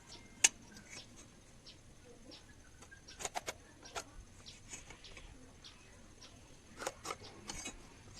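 Scattered light taps and clicks from hand work on the cage parts: a sharp click about half a second in, a quick run of taps around three seconds in and a few more near the end.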